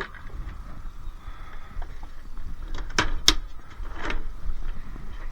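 Sharp knocks and cracks of a dishwasher's plastic housing being broken off with a small hammer: one at the start, two close together about three seconds in, and another about a second later.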